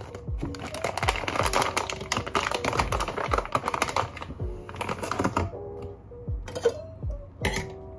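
Large foil bag crinkling and crackling as it is handled and opened, densest in the first half and sparser after that, over background music with a soft, regular beat.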